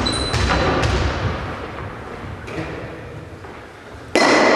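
Dull thuds and knocks of balls striking the floor and walls of a large sports hall, echoing, with a few in the first second and then dying away. Louder, denser noise starts abruptly near the end.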